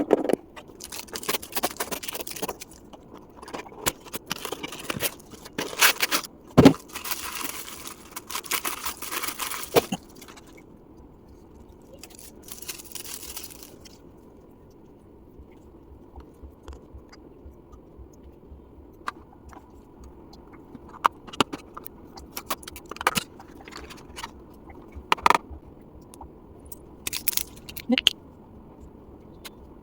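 Packaging being handled and opened: rustling and crinkling in spurts over the first ten seconds and again briefly a few seconds later, with sharp knocks and clicks of items being picked up and set down, then only occasional light taps and clicks.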